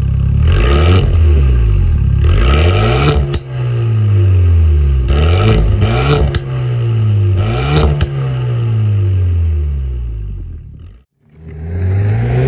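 Renault Mégane R.S. Trophy-R's turbocharged 1.8-litre four-cylinder revved about four times at a standstill through its Akrapovič titanium exhaust, each blip climbing and falling back, with sharp cracks as the revs drop. After a brief break near the end, the engine note climbs again as the car accelerates.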